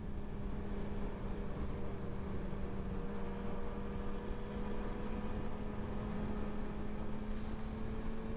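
Suzuki GSX-R sportbike's inline-four engine cruising at a steady highway speed, a steady drone heard under even wind and road noise.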